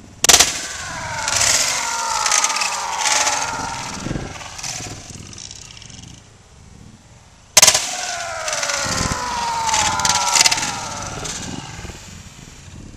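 Two sledgehammer blows on a Canon iP1500 inkjet printer's plastic body, about seven seconds apart. Each sharp crack is followed by a few seconds of clattering and a ringing tone that falls in pitch.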